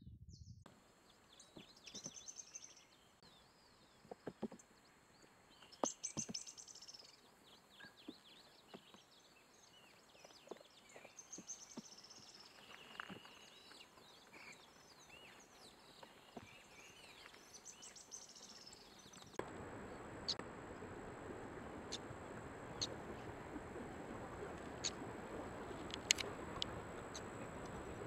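Stripe-crowned spinetail singing: short high trills and twittering phrases every few seconds. About two-thirds of the way through, the background hiss rises and a yellow-chinned spinetail gives sharp, isolated high chips.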